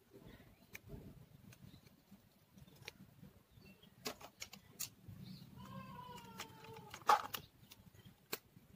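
Quiet small clicks and taps from handling lipstick tubes, the sharpest a little past seven seconds in. Midway, a drawn-out pitched call of about a second and a half, falling slightly, sounds in the background.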